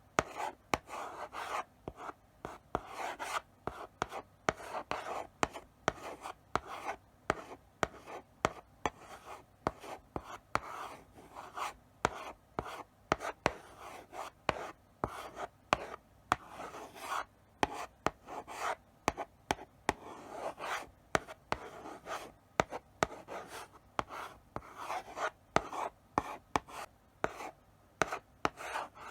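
Chalk writing slowly on a blackboard: a continuing run of short scratchy strokes, broken by sharp taps as the chalk meets the board.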